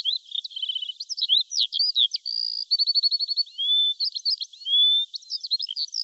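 Birds chirping: a busy mix of short whistled notes, quick rattling trills and up-and-down glides, high and thin with nothing low beneath them.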